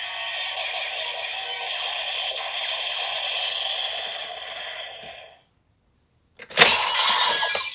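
DX Hiden Zero-One Driver toy belt playing its electronic finishing-move sound effects and music for the Shining Assault Hopper key, fading out a little past five seconds in. After a second of silence, a sudden loud clatter comes near the end.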